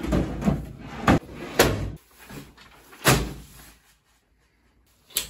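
Drawers of a Graco Hadley changing-table dresser being pushed shut, sliding in and knocking against the frame several times, then a single sharp knock near the end.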